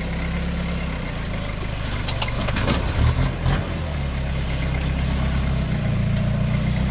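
Modified Toyota Hilux rock crawler's engine running at low revs in low-range crawl, a steady rumble. A few sharp knocks and scrapes sound about two to three and a half seconds in as the truck works its tyres down over the rock ledge.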